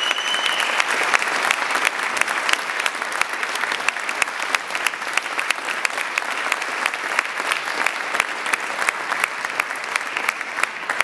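Audience applauding steadily, with a brief high whistle near the start. The clapping thins out near the end.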